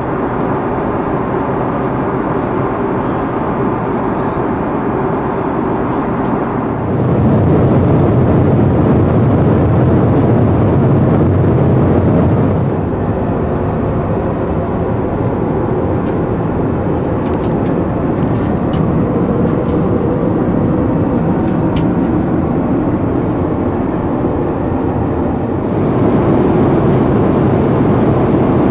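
Steady rushing cabin noise of an Airbus A330-300 airliner, its Rolls-Royce Trent 700 engines and airflow blending into one even roar. The noise grows louder for several seconds about a quarter of the way in and again near the end.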